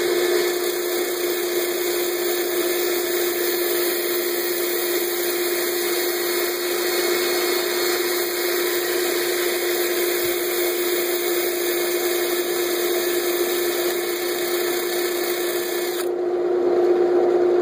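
Power sanding: a Bosch cordless drill spins a sanding disc against a green-wood natural-edge bowl turning on a running wood lathe, giving a steady motor whine under a broad sanding hiss. The hiss drops away about a second and a half before the end, while the whine continues.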